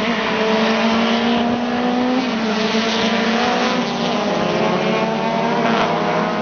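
Several modified racing cars running on a circuit together, their engines at high revs overlapping. The engine notes slowly fall, then rise again as the cars go round the track.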